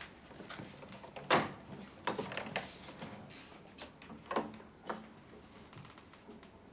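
Clicks and knocks of a wooden door being handled, a few separate sharp ones with the loudest about a second and a half in, over quiet room tone.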